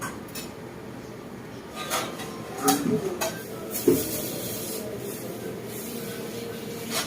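Chicken sizzling in a pan, a steady hiss, with a few knocks and clinks of a utensil against the pan about halfway through.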